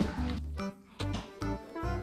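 Background music: a light tune with held notes over a bass line.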